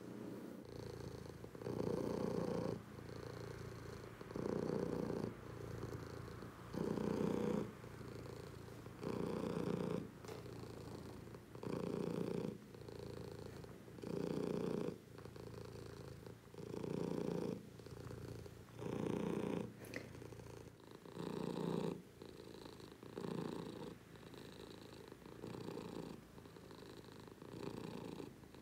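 Domestic tabby cat purring continuously while its head is stroked, the purr swelling louder about every two and a half seconds with its breathing and growing softer in the later part as it drifts toward sleep.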